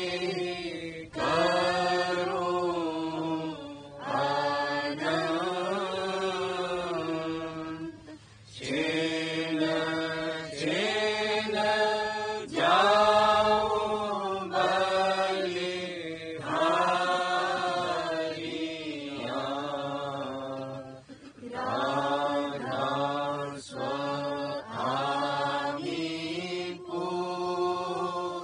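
A voice chanting a devotional shabd (hymn) in long, gliding melodic phrases, with brief pauses between them.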